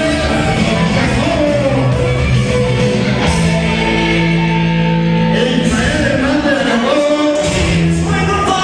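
Cumbia music with singing, a steady bass line and melody throughout.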